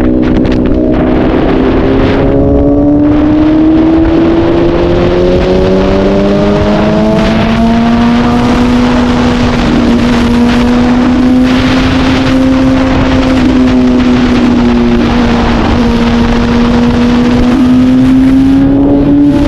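Honda CBR1000RR's inline-four engine running under way, its pitch climbing slowly over the first several seconds, then holding nearly steady, and rising again near the end.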